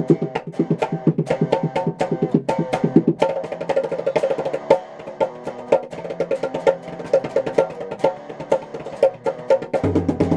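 Electric guitar playing a repeating riff over a fast, sharp, clicking percussion beat, about four to five hits a second; a lower bass part joins near the end.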